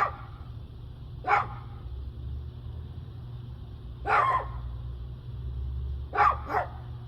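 A dog barking five short times, the last two close together, over a steady low rumble.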